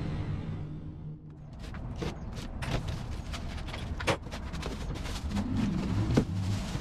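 The last of a music sting fades out in the first second. Then a cardboard box and its foam packing are handled and pulled apart, with a string of short sharp rustles, scrapes and knocks.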